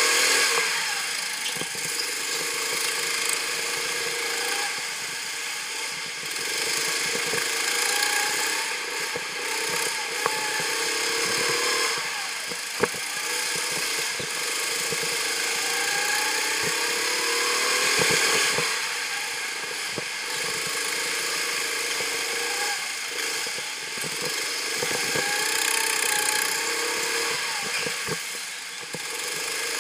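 Go-kart engine heard from the driver's seat, rising in pitch several times as the kart accelerates and dropping back as the throttle lifts for the corners. Two short sharp knocks come near the middle.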